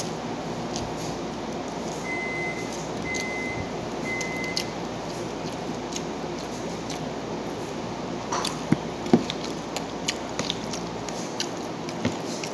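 Three short electronic beeps of a kitchen appliance, evenly spaced about a second apart, over steady room noise; later, a scattering of light clicks and taps.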